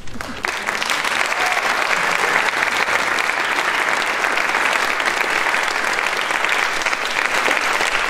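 Audience applauding, breaking out suddenly as the piano's last notes end and filling out within the first half second, then steady and sustained.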